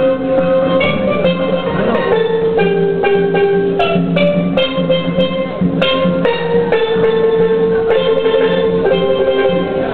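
A steel pan band playing a melody, with many held, ringing pan notes over a hand drum beat.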